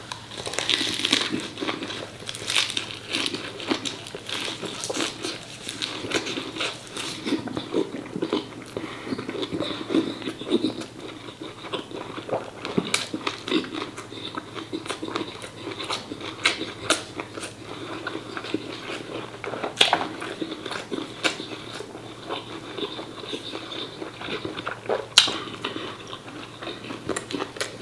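Close-miked chewing and biting of braised pork offal (phá lấu) wrapped in fresh herbs: a continuous run of wet mouth sounds and many short sharp clicks, with the loudest snaps about twenty and twenty-five seconds in.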